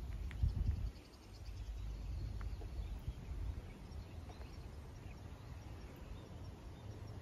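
Outdoor ambience: a steady low rumble, louder in the first second, with a faint, rapid bird trill in the first second and a half and a few scattered faint chirps after.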